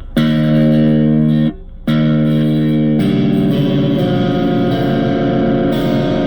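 Electric guitar played through a Blackstar ID Core V3 10-watt practice amp, set to its Super Crunch distortion: a chord rings out and stops, rings again, then about three seconds in gives way to a busier, continuously picked passage.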